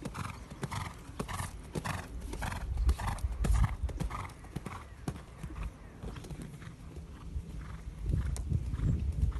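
Horse cantering under a rider on a sand arena: dull hoofbeats in a steady rhythm, about two to three a second.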